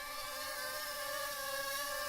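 DJI Tello mini drone hovering in place, its four small propellers making a steady, high buzzing whine.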